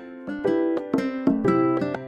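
Background music: a gentle instrumental of plucked-string notes, about three a second, each ringing and fading.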